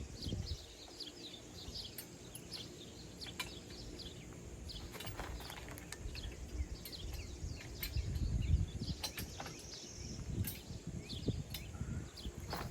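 Birds chirping throughout, many short falling calls, with a few sharp clicks and knocks scattered through. A low rumble swells about eight seconds in.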